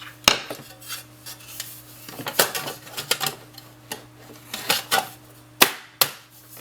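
Irregular clicks, clinks and knocks of metal computer parts being handled and fitted together, the power supply going in without screws.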